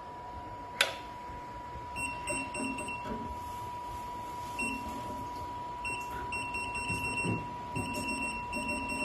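Programmable pattern sewing machine beeping in short runs of high tones, some brief and some held, as its direction keys are pressed to jog the needle to the starting point. A steady high-pitched hum runs underneath.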